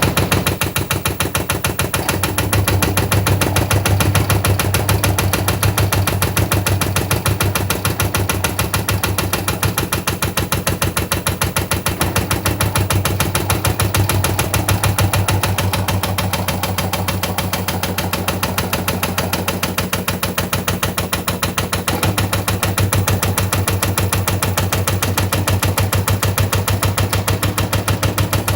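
Washing machine drum knocking inside the cabinet as it spins, a rapid, steady run of knocks over a low hum. In most cases this is a sign of worn drum shock absorbers.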